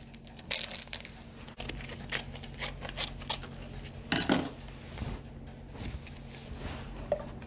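Small clicks and rustles of a plastic soup-base packet handled over a stainless steel pot, with a louder clatter about four seconds in. A faint low hum comes in after about a second and a half.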